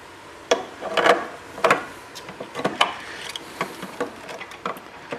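Irregular clicks and knocks of a bolt and metal mounting bracket being fitted and handled on a FIAC WallAir wall-mount compressor housing, about eight sharp taps in all.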